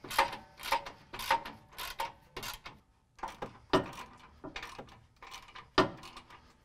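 Socket ratchet clicking in quick back-and-forth strokes, about three a second, as nuts are run down on the bumper's 3/4-inch mounting bolts. After about two and a half seconds it breaks off briefly, then goes on as scattered, slower clicks.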